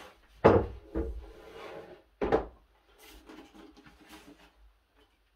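MDF boards being handled on a wooden frame: three wooden knocks, the first and last loudest, within the first two and a half seconds, then light rubbing and scraping.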